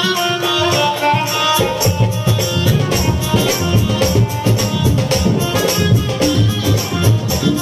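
Instrumental Hindu devotional bhajan music: a fast, steady percussion beat under a sustained melody line. A deeper bass beat comes in about a second and a half in.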